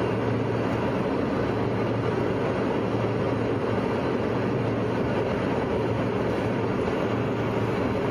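Steady cabin noise of an airliner in flight: an even rumble with a constant low hum.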